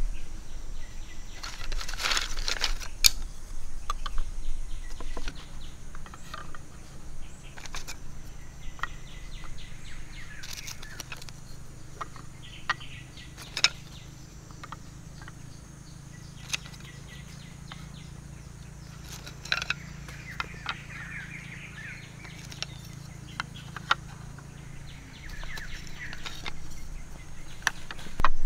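Split green bamboo slats clicking and knocking now and then as they are laid by hand into a bamboo frame, with birds chirping in the background.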